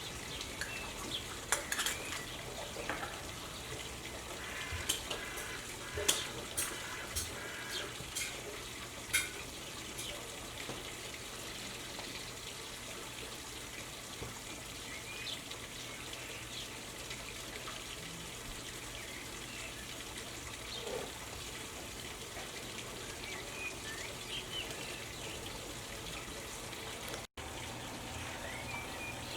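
Outdoor garden ambience: a steady hiss with small birds chirping now and then, and a run of sharp clicks and taps in the first ten seconds or so.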